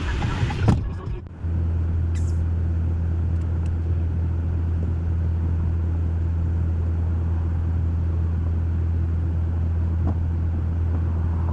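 A vehicle engine running at a steady idle, a low unchanging drone that sets in about a second and a half in, after a short stretch of rough, wind-like noise.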